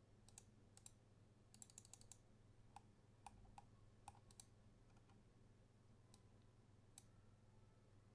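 Faint, scattered computer mouse clicks selecting objects, including a quick run of about eight clicks around two seconds in, over a faint low hum.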